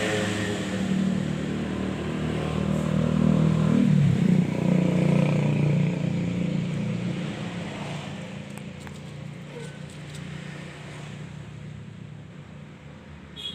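A motor vehicle's engine passing by, growing louder to a peak about four seconds in with a drop in pitch, then slowly fading away.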